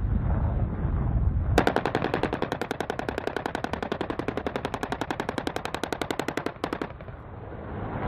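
AH-1Z Viper's 20 mm M197 three-barrel rotary cannon firing one long burst, a rapid even string of shots about a dozen a second. It starts about a second and a half in and stops about five seconds later. Before and after the burst, the helicopter's low rotor rumble and wind noise are heard.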